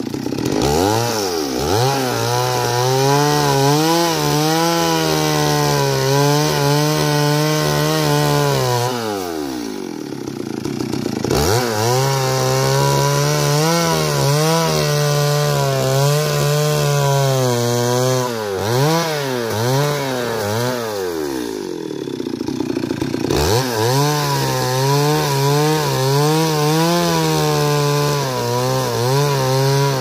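Two-stroke chainsaw run at full throttle while cutting wood, in three long cuts. Between them, about ten seconds in and again a little past twenty, it drops to idle and then revs back up.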